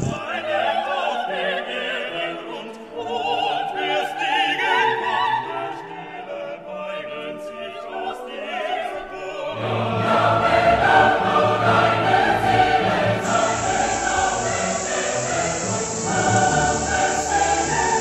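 Background music with operatic singing; a deeper, fuller accompaniment comes in about halfway and the music grows louder.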